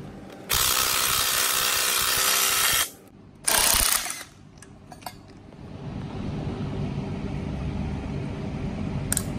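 A C-clamp's screw being turned under load to press the caps of a driveshaft U-joint into the yoke: two stretches of loud metal-on-metal rasping, a long one and then a short one. After that come a few light metallic clicks as a pick works the U-joint cap's retaining clip into its groove.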